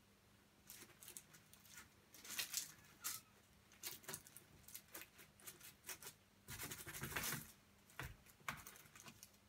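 Faint, irregular crunching and scratching as a hand puppet nibbles at baked biscuits on a paper-lined baking tray, with a denser run of crunching about seven seconds in.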